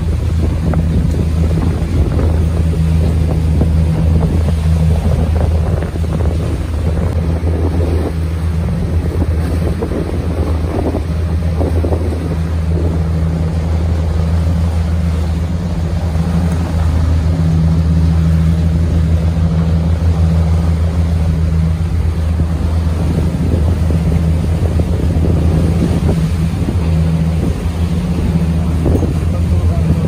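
Boat's engine running steadily while under way, a constant low hum, with wind noise on the microphone.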